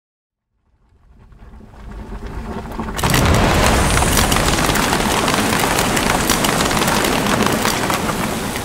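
Sound-effect explosion: a rumble swells for a couple of seconds, then a loud boom about three seconds in, followed by a dense crackle of many small pops that holds and begins to fade near the end.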